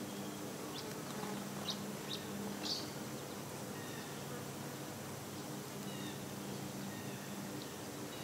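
A flying insect buzzing at a low, steady pitch, fading in and out, with a few short, sharp bird chirps between about one and three seconds in.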